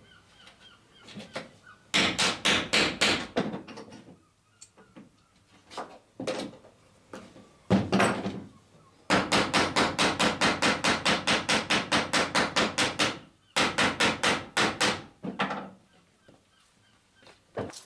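Hammer riveting square-shanked copper boat nails through a clinker plank's lap, in several runs of quick, evenly spaced blows of about six a second. The longest run lasts about four seconds, a little past the middle.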